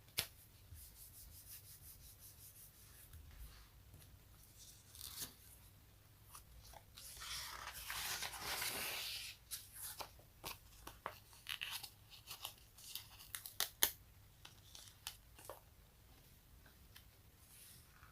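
Something sticky being peeled apart close to the microphone. There are scattered sticky clicks and pops, then one crackling peel of about two seconds near the middle, then a quick run of sharper pops, thinning out near the end.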